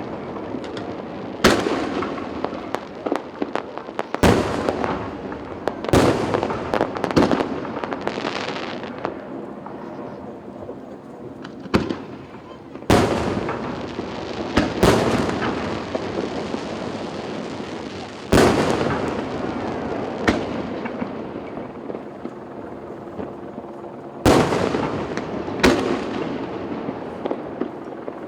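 Aerial firework shells bursting, a loud boom every few seconds, each followed by a long fading echo. The booms come in small clusters, with a busier stretch early on and near the end.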